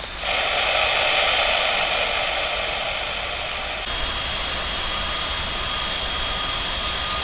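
Boeing 777's turbofan engines running: a steady jet hiss with a high whine. The sound shifts abruptly about four seconds in, after which the steady whine stands out more clearly.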